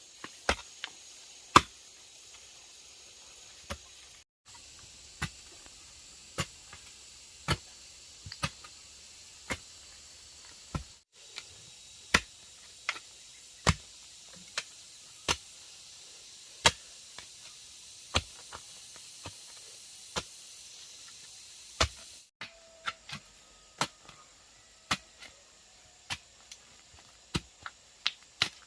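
Repeated sharp chopping strikes, roughly one every second and a half, a few of them in quick pairs, over a faint steady high hiss.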